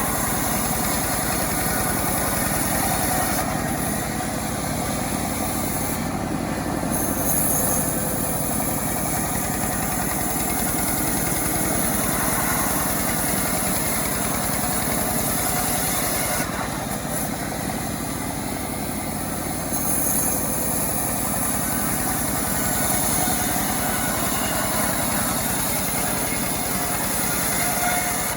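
Self-assembled chainsaw's small engine running steadily while cutting large wood, its note shifting a few times as the load changes.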